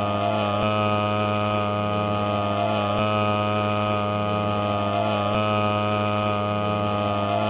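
A loud, steady buzzing drone, one tone with many overtones, with a faint pattern that repeats about every two and a half seconds, like a short stretch of audio looped over and over.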